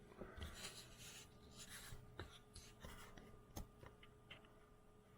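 Faint rustling and light clicks of objects being handled, with one sharper click a little past halfway.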